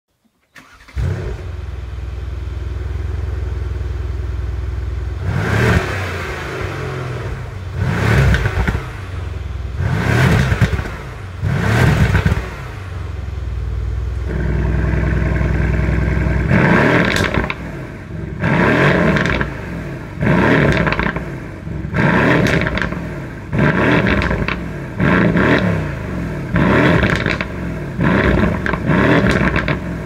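Mercedes-AMG C63 estate's 4.0-litre twin-turbo V8 starting up and idling, then revved in short stationary blips, four of them spaced apart. In the second half, with the exhaust valves open, it is blipped about eight more times in quicker succession.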